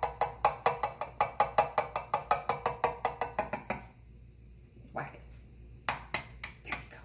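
An egg tapped rapidly and lightly against the rim of a small saucepan to crack it, about six taps a second, each one making the pan ring faintly. The tapping stops about four seconds in and resumes as a few single knocks near the end.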